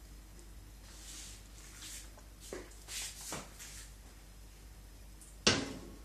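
Faint scrapes and shuffles as a pot of spiced brine is lifted and moved away, then one sharp, hard knock near the end, the loudest sound.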